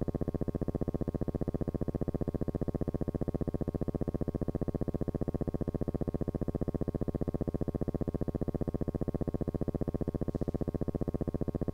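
A steady, low, evenly pulsing buzz that repeats many times a second and holds unchanged throughout.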